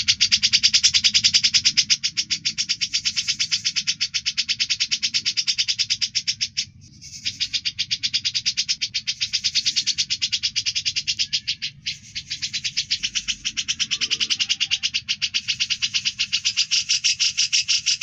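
Songbird's sharp, rasping 'besetan' call: a fast, even train of clicks many times a second, held almost without pause, breaking off briefly about seven and about twelve seconds in. A faint low hum lies underneath.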